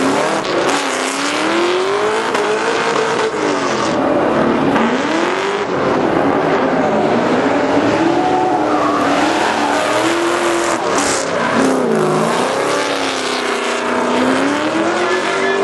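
Ford Mustangs drifting: engines revving up and down over and over while the rear tyres squeal and screech in long slides.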